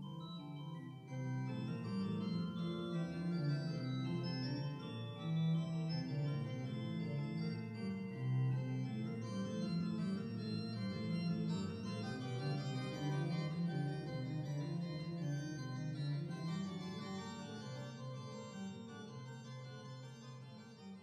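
Organ music playing slow, sustained chords, fading away over the last few seconds.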